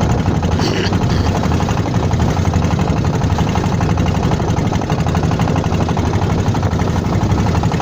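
Engine of a klotok (small wooden motorboat) running steadily with a rapid, even chugging.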